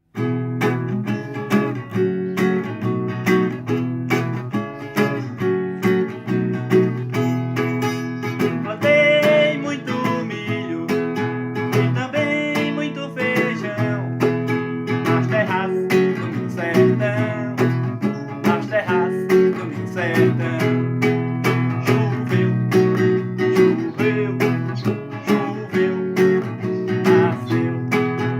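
Acoustic guitar music: a steadily strummed chord accompaniment with a melody line played over it.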